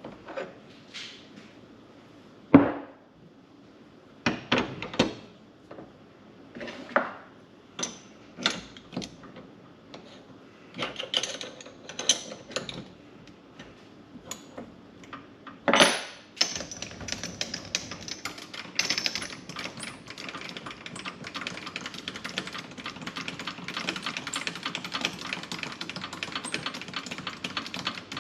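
Metal clinks and knocks of tools and workpiece being handled at a mini lathe, one at a time with short gaps. About halfway through, a steady noise full of rapid fine ticks sets in and keeps going.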